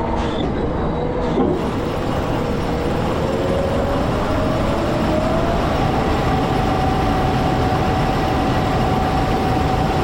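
Tractor running under load, with a whine that rises in pitch over about four seconds and then holds steady over the machine's noise.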